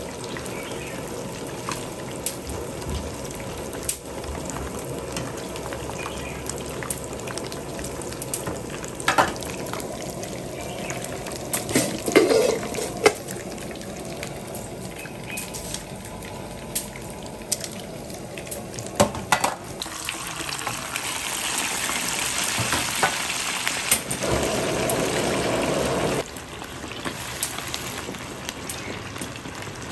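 Pieces of moray eel deep-frying in hot oil in a pan: a steady bubbling sizzle, with a few sharp clinks of the metal ladle and strainer against the pan. The sizzle grows louder about two-thirds of the way through as a fresh batch fries hard.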